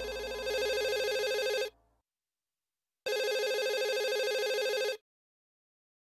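Telephone ringing: two rings, each a steady pitched ring of about two seconds, with a silent pause of about a second and a half between them.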